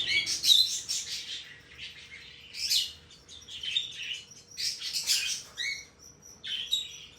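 Small pet birds chirping: short, high chirps in clusters, with brief pauses between them.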